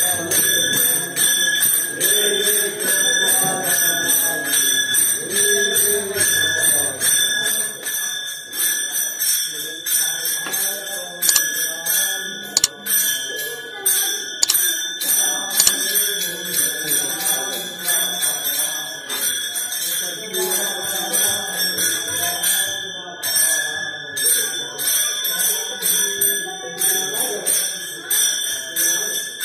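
Devotional music: voices singing over a rhythmic metallic jingling of bells, with a steady high ringing underneath.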